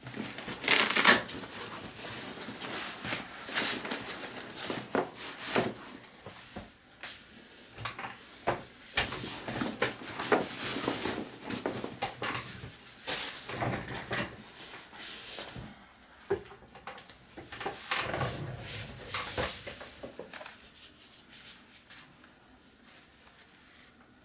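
Handling noise from a Vanguard Up-Rise 28 bag being opened and gone through by hand: a busy run of clicks, knocks and fabric noise that dies down about twenty seconds in.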